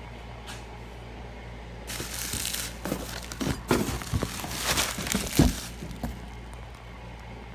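Packing material crinkling and rustling as hands rummage through a box of parts, with several sharp knocks and clicks, from about two seconds in until about six seconds in. A steady low hum runs underneath.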